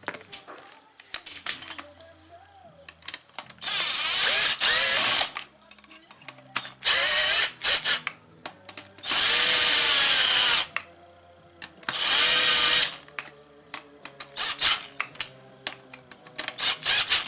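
Cordless drill running screws down into a two-stroke engine's aluminium block, with the clutch set at its tightest. There are four runs of the motor, each a second or two long, and the pitch sags as each screw seats. Small clicks of parts being handled come between the runs.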